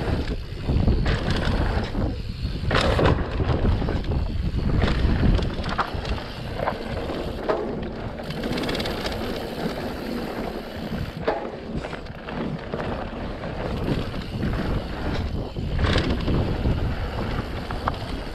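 Mountain bike descending a dirt singletrail: wind buffeting the microphone over the rumble of tyres on dirt, with scattered knocks and rattles from the bike over bumps.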